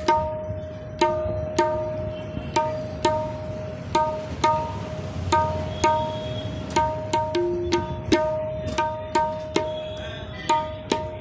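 A tabla being played: the right-hand drum is struck about twice a second, each stroke ringing at one clear, steady pitch, with a few lower notes mixed in. It demonstrates the drum's tuning and tone.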